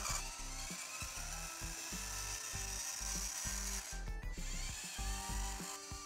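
Upbeat background music with a pulsing bass line and a rough, hissing upper layer. The high layer drops out briefly about four seconds in.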